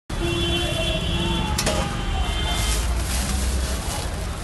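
Clear plastic wrapping rustling and crinkling as it is pulled off a new air compressor, with a sharp click about a second and a half in, over a steady low rumble.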